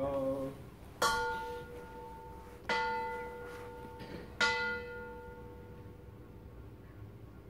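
Buddhist bowl bell struck three times with a wooden striker, evenly about a second and a half apart. Each strike rings a clear, bright tone that fades away slowly.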